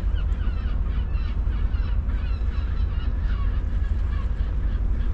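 A flock of birds calling: many short, overlapping calls throughout, over a steady low rumble.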